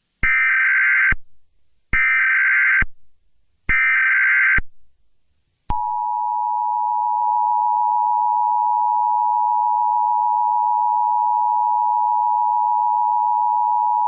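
Emergency Alert System tones: three short buzzing bursts of SAME header data, about a second each with short gaps, then the steady two-tone EAS attention signal held for about eight seconds. Together they mark the start of an emergency alert broadcast.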